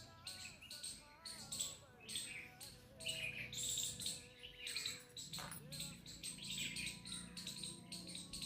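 Birds chirping in a dense chorus of rapid, overlapping short chirps.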